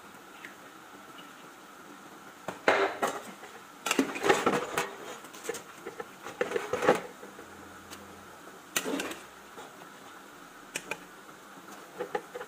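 Cooking clatter: a wooden spatula knocking and scraping against a pot, with cookware clanking now and then, in short irregular bursts that are busiest in the first half.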